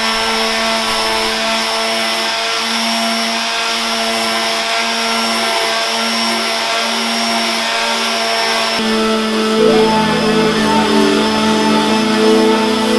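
Electric power sander running steadily with a constant motor hum and hiss. Music comes in about nine seconds in.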